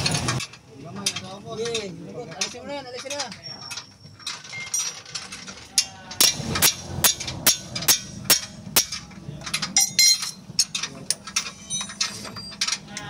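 Metal hand tools clinking and tapping on a car's steering and suspension parts during underchassis repair work: a quick, irregular run of sharp metallic knocks that starts about six seconds in.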